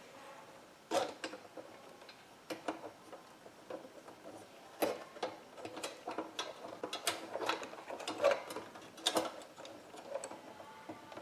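Irregular clicks, knocks and rattles of plastic and metal parts as a hard drive housing is pulled out of a desktop computer case. The sharpest knocks come about a second in, about five seconds in and about nine seconds in.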